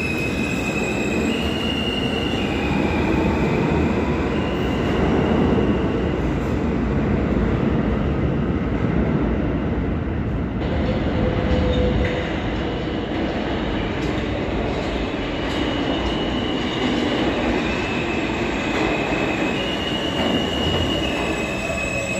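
New York City Subway R160 train running through the station: a steady rumble of wheels on the rails, with high held tones that shift up and down in pitch.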